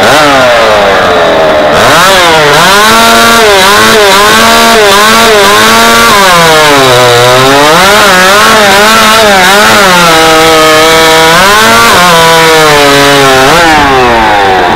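Stock-class two-stroke chainsaw running flat out and very loud. Its pitch keeps dropping as it loads up in the cut and climbing again as it frees up, with the deepest drop about halfway through.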